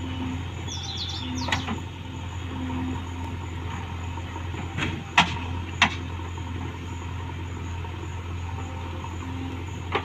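Diesel engines of a JCB 3DX backhoe loader and a tractor running steadily with a low hum. Birds chirp about a second in, and a few sharp knocks stand out, the loudest two close together about halfway through.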